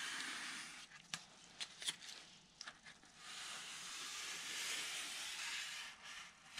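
A balsa scrap rubbing along resin-wetted carbon fiber in a foam wing's spar slot as it presses the fiber down: two long scraping strokes, with a few light clicks between them.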